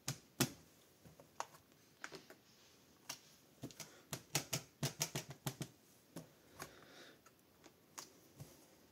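Plastic-cased Distress Oxide ink pad dabbed repeatedly onto a clear stamp on a stamping platform: a run of light, irregular taps and clicks, thickest between about three and six seconds in, as the stamp is inked.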